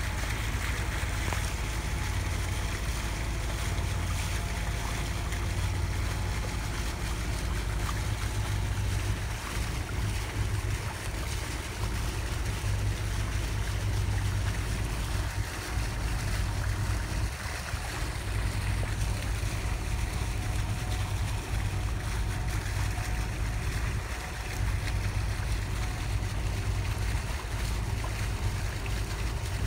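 Sailboat under way: a steady low rumble, with wind buffeting the microphone and water washing along the hull.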